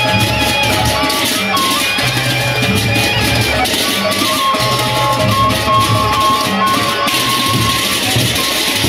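Sasak gendang beleq gamelan playing an old tembang: many pairs of hand cymbals clash in a continuous metallic shimmer over recurring low beats of the big drums, with a held, slightly wavering melody line above.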